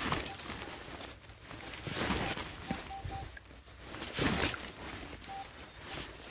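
A spade cutting and levering into turf and soil, three times in scrunching, scraping swells. Between them a metal detector gives short beeps, three quick ones midway and one more near the end, as the hole is checked for the target.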